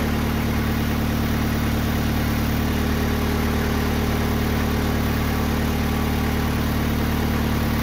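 Gasoline engine of a TimberKing 2020 portable band sawmill idling steadily.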